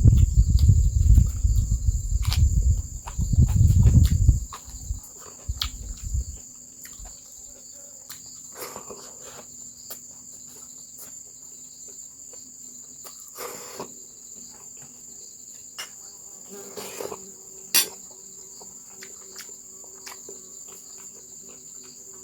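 Steady high-pitched chirring of crickets throughout, with a loud low rumble in the first four seconds or so and scattered small clicks after.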